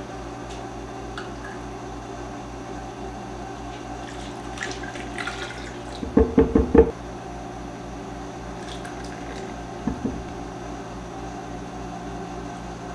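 Milk poured from a metal measuring cup into a blender jar, the pour loudest for about a second halfway through, followed by smaller pours and clinks, over a steady low hum.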